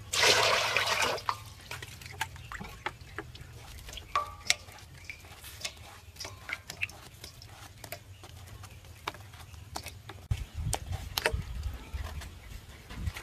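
Peeled bamboo shoot being cut into chunks with a knife, the pieces dropping into a steel bowl of water: scattered small clicks and watery plops. It opens with a louder noisy burst about a second long.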